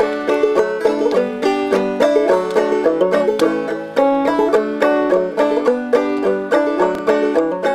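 Banjo picking a lively country tune: a quick, steady stream of plucked notes with no singing.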